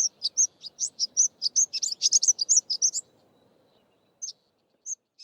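Greater double-collared sunbird singing: a fast, jumbled run of high, thin chips and twitters for about three seconds, then a few scattered single notes.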